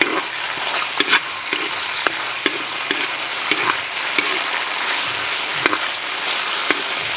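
Vegetable strips and sauce sizzling in oil in a steel wok as a ladle stirs them. The ladle scrapes and clicks against the pan at irregular moments, about once or twice a second.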